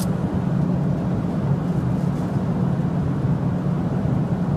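Steady drone of an airliner cabin, engine and airflow noise with a strong low hum, and a brief click right at the start.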